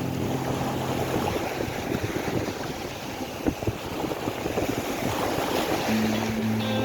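Storm-force wind buffeting the microphone, with surf washing on the shore. Background music fades out at the start and comes back near the end.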